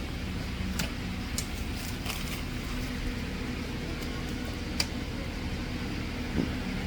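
Steady low machine hum with a few faint clicks.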